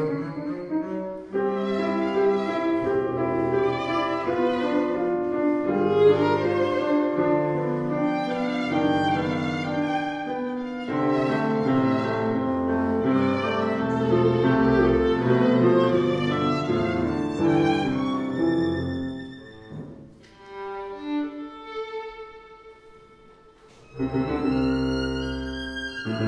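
String orchestra playing, violins to the fore over sustained chords. About twenty seconds in it thins to a few quiet, scattered notes, then the full strings come back in near the end.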